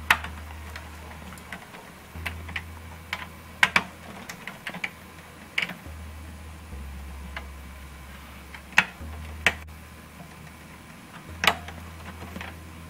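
Irregular sharp clicks and taps of a USB cable plug being fumbled against the metal back panel of a PC tower and pushed into a rear USB port, over a low steady hum.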